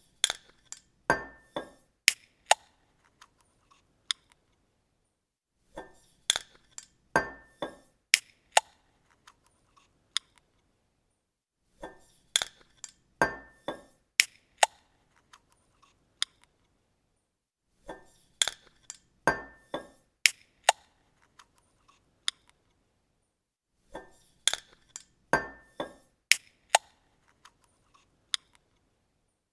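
A bottle cap being opened on a glass bottle: a quick cluster of sharp clicks and metallic clinks with a brief ring, repeated five times about six seconds apart.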